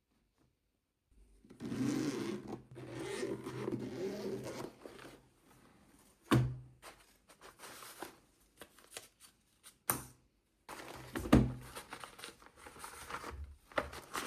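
Packaging of a keyboard being opened and handled: scraping, rustling and crinkling, broken by a few short sharp knocks, the loudest about eleven seconds in. It starts about a second in.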